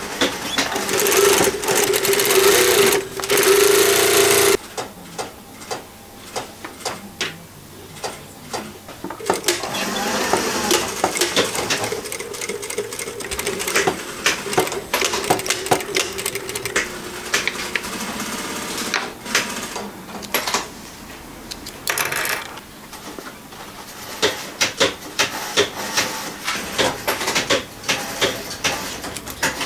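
Industrial sewing machine stitching fabric in stop-start runs. A fast steady whir lasts a few seconds and cuts off sharply, then slow single stitches tick one at a time, then a longer run, then more short starts and stops.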